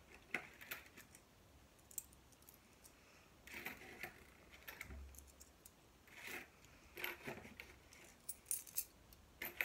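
Coins clinking and tapping against each other and a tabletop in scattered clusters of sharp metallic clicks, with short pauses between them.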